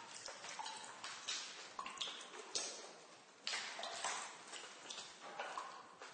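Water dripping in a basement: irregular drops, a few a second, plinking into water with short pitched tones, each trailing off in an echoing decay.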